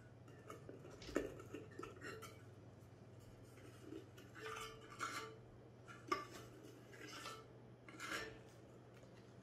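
A scoop scraping and tapping inside a tin of powdered milk formula: a string of short scrapes and clicks, the sharpest about a second in and again about six seconds in.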